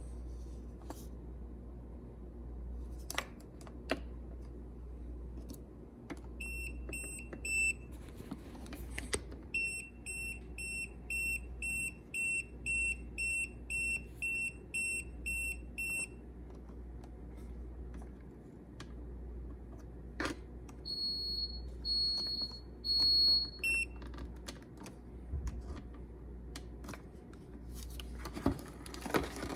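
Electronic beeps: three short beeps, then a run of about a dozen even beeps at roughly two a second, then three higher-pitched beeps. Faint clicks and a low steady hum lie underneath.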